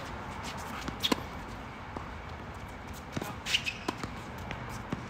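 Tennis ball struck by rackets and bouncing on a hard court during a doubles rally: a handful of sharp pops, the loudest pair about a second in and several more around three to four seconds in.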